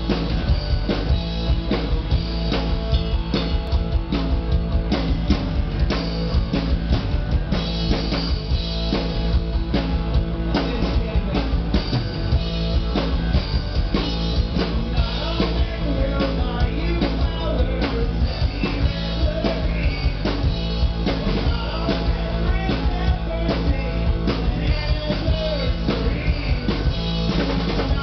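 Live rock band playing with drum kit and guitar, with a steady driving beat.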